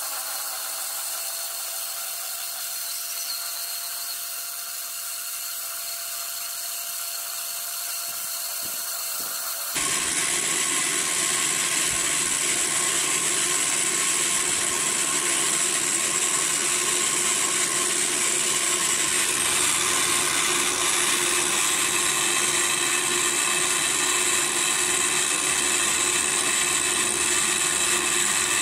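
Parkside direct-drive pillar drill running as a small mill, its end mill taking a facing cut across a metal bar with a steady motor whine. About ten seconds in the sound turns suddenly louder and rougher and stays that way.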